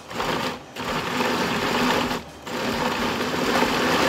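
Countertop blender motor running in pulses, chopping boiled tomatillos into salsa verde: a short burst, a stop, a longer run, a brief stop about two seconds in, then a steady run.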